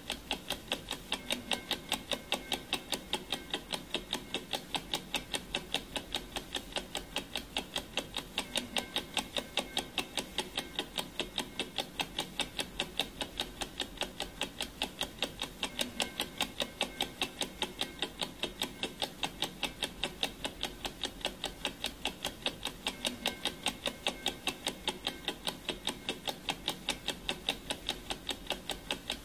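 Clock ticking sound effect: a fast, even run of sharp ticks, several each second, with no change in pace.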